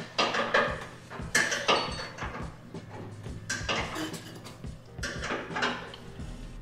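Irregular sharp metallic clinks and clanks, seven or so, as a steel hood and its hardware are fitted onto the car; the loudest come a bit over a second in and about three and a half seconds in.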